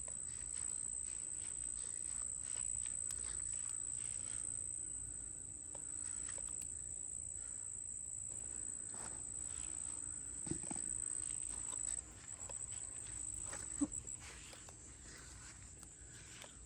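Insects trilling with a steady high-pitched note that breaks into short pulses about three-quarters of the way through, with a few faint clicks and rustles.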